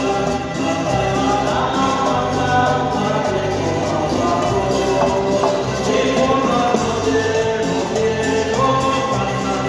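Music with singing over a steady percussive beat.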